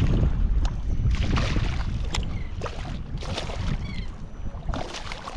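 Wind rumbling on the microphone, with three bursts of water splashing as a hooked flounder (fluke) thrashes at the surface beside the kayak.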